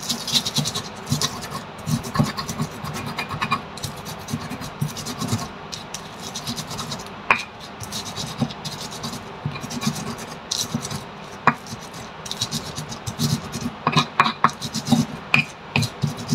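Stone pestle grinding red chilies in a volcanic-stone mortar (cobek): stone scraping and rubbing against stone in irregular repeated strokes, with a few sharper knocks, more of them near the end.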